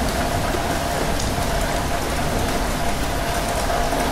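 Steady rain falling, with a low rumble and a faint steady hum underneath.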